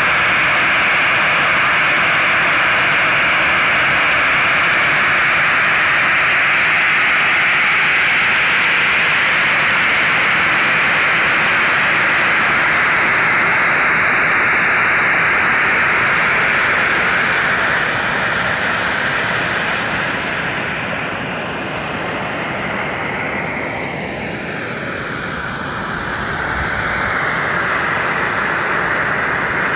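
Geothermal steam vent hissing loudly and steadily, a dense rushing hiss. It eases off after about 18 seconds and swells again near the end.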